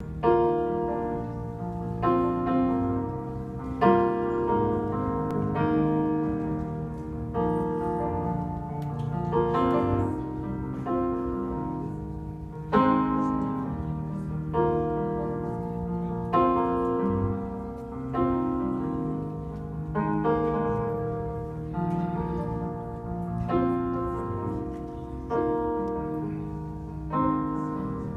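Yamaha stage keyboard played with a piano sound: slow, sustained chords, a new chord struck about every one and a half seconds and left to ring.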